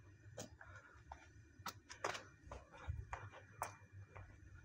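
Faint, irregular sharp clicks and taps, about two a second, over a low rumble.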